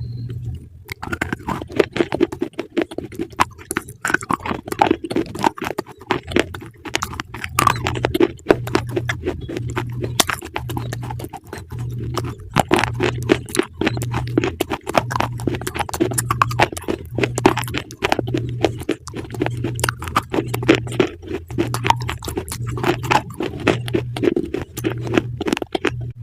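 Close-up crunching of crisp food being chewed, a dense run of sharp crackles and crunches. A low tone pulses underneath about once a second.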